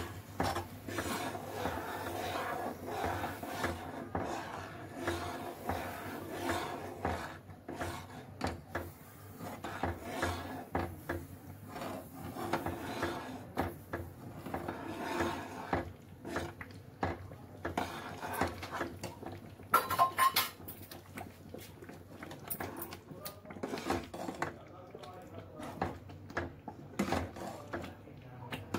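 Metal ladle stirring and scraping in a nonstick kadai of boiling liquid as fine grain is sprinkled in, with frequent clinks of metal on the pan. A few sharper, ringing clinks come about twenty seconds in.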